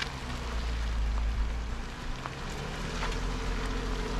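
Jeep Wrangler engine running low and steady as it crawls through slick, slimy mud, with scattered small clicks and crackles over the rumble.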